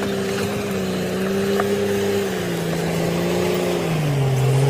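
Komatsu crawler bulldozer's diesel engine running steadily under load as it pushes broken concrete slabs. Its note drops about halfway through and again near the end.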